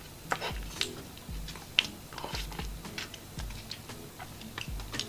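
Person chewing a soft matcha lava cake, with scattered small wet mouth clicks and light crackles and soft low pulses about every half-second.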